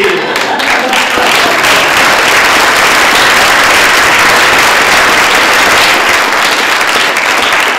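Audience applauding steadily at the end of an improv scene.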